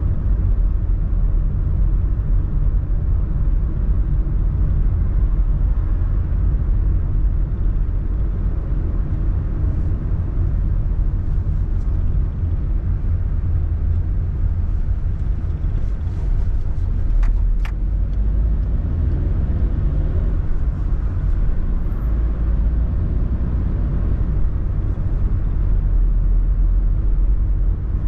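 Car driving along, a steady low rumble of engine and road noise, with two short clicks about seventeen seconds in.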